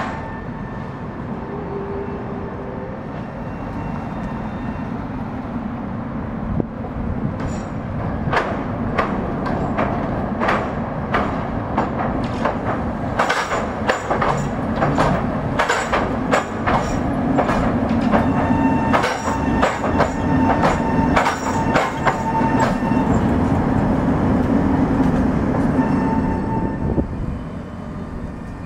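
Two-car Tatra T3 tram set rolling slowly over a temporary 'Californian' surface crossover laid on top of the tram rails, its wheels clattering in a long run of sharp knocks as each axle drops over the crossover's rail pieces, over a steady drone from the tram. The knocks start a few seconds in, come thick and fast for about fifteen seconds, and die away near the end.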